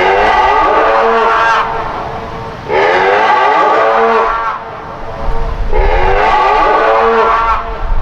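Dual Whelen WPS-3000 tsunami warning sirens sounding the 'mooing cow' test tone, which signals only a system test. Three long moos start about three seconds apart, each gliding up in pitch and then holding.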